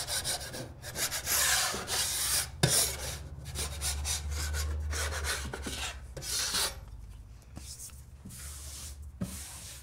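Steel broad knife scraping over dried Tradeset 20 joint compound on a plasterboard patch, knocking off the rough edges of the first coat. It is a series of raspy scraping strokes, fainter in the last few seconds.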